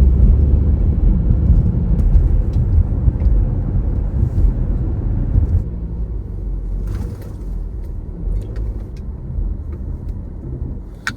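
Steady low rumble of a car driving, which drops in level about halfway through, with a few light clicks in the second half.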